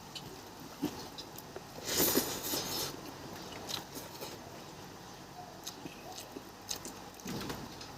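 A person eating: close-up chewing and biting with small wet mouth clicks, and a louder, noisier stretch about two seconds in.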